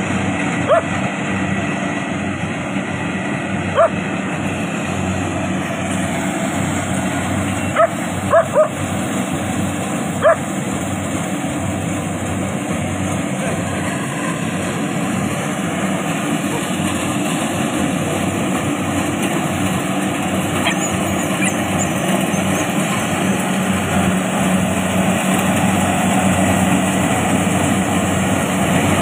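Kubota combine harvester engine running steadily at working speed. A dog gives about six short, high yips in the first ten seconds, three of them in quick succession.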